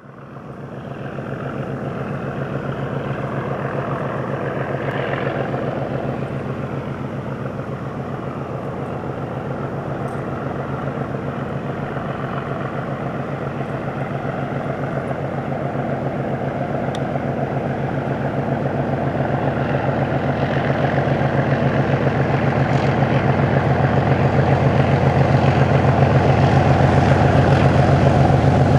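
Two Class 37 diesel-electric locomotives, each with an English Electric V12 diesel engine, working hard under power as they approach: a steady deep engine drone that grows gradually louder.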